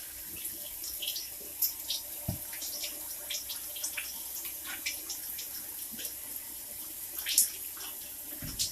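Water going into a pot of hot butter sauce, which sputters with scattered small pops and clicks over a faint hiss.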